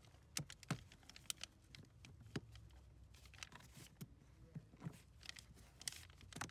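Faint, scattered clicks and light knocks of plastic parts being handled as the evaporator core cover is fitted back onto the A/C evaporator housing.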